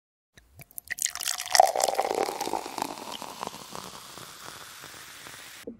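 Wine being poured from a bottle into a glass: it starts with a few splashes about half a second in, is loudest over the next second or so, then thins to a steady trickle that cuts off suddenly just before the end.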